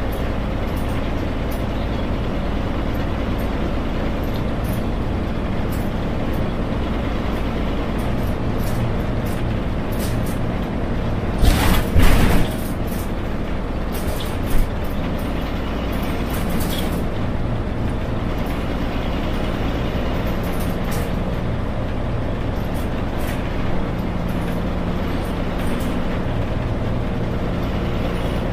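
Yangzijiang WG6100NQC4 city bus's front-mounted NQ160N4 engine running steadily under way, heard from beside the driver. About twelve seconds in there is a loud hiss of air, about a second long, from the air brakes, with a smaller one a couple of seconds later.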